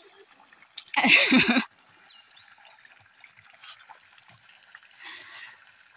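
Spring water trickling steadily from a pipe spout into a concrete channel, with a loud splash about a second in as water is splashed onto a face from cupped hands, and a softer splash around five seconds in.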